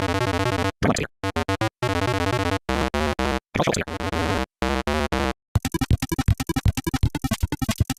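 Synthesizer music played back at six times speed: rapid, high notes cut into short chunks by abrupt silent gaps, turning into a fast stuttering pulse about two thirds of the way through.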